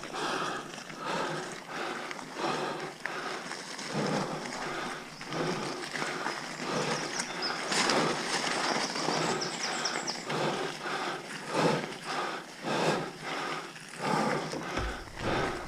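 Mountain bike rattling over a rough, wet off-road trail, with the rider breathing hard in repeated heavy pants. A brief high-pitched squeal sounds about eight seconds in.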